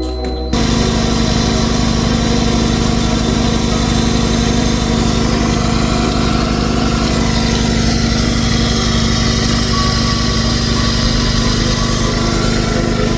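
A small motor running steadily with an even hum, starting abruptly about half a second in.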